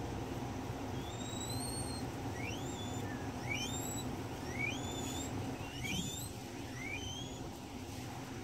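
A guinea pig wheeking: a run of short rising squeaks, about one a second, the first one longer and slower, over a steady low background hum.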